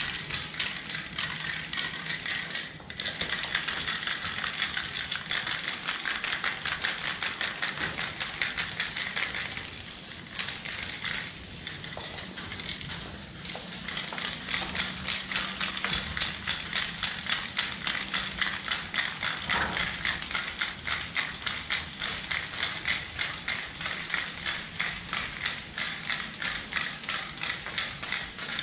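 Aerosol spray paint can hissing as silver paint is sprayed in fill strokes, the hiss swelling and dropping in quick pulses about three times a second, with a brief break about three seconds in.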